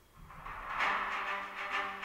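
Instrumental intro music fading in over the first second, with held notes.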